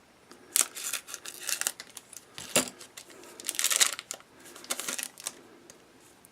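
Foil trading-card pack wrapper crinkling and rustling as it is handled and opened, in several short bursts, with one sharp click about two and a half seconds in.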